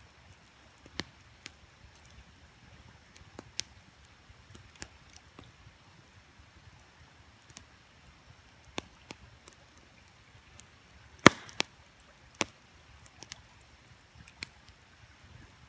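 Wood campfire crackling, with irregular sharp pops and snaps; the loudest pop comes about eleven seconds in, followed by another strong one a second later.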